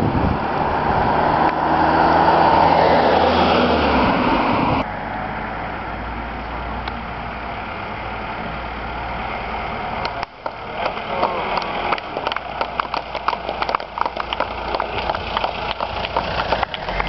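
Motor vehicles on a road. First a loud close pass with a steady engine hum, which ends in a sudden cut. Then a steadier engine and tyre noise as a car approaches, and from about ten seconds in a busy run of quick ticks and taps over a low engine rumble as a van goes by.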